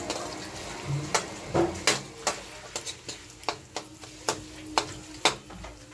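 Metal spatula scraping and clinking against a wok while stir-frying shredded chicken, irregular strokes about two a second over a faint sizzle.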